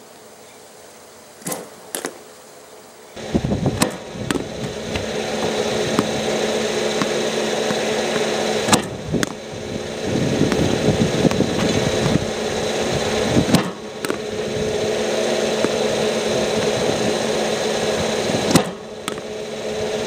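Softballs bunted off a bat: sharp knocks a few seconds apart. From about three seconds in they sit over a loud, steady mechanical hum.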